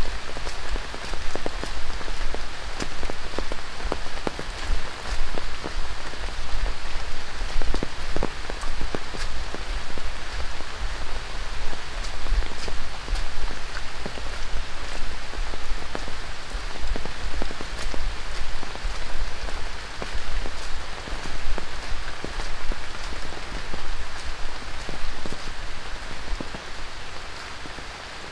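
Rain falling on dense rainforest foliage and a muddy trail: a steady hiss of rain with many sharp, close drop hits on leaves. It eases slightly near the end.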